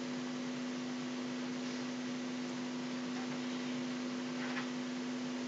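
Steady electrical hum with a faint hiss underneath, unchanging throughout: background noise of the recording setup.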